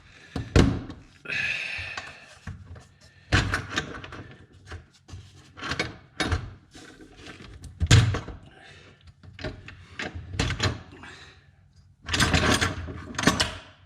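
Metal parts being handled: several separate knocks and clunks as an LS3 fuel rail with its injectors is worked loose from the intake manifold, then a rough scraping rattle for about two seconds near the end.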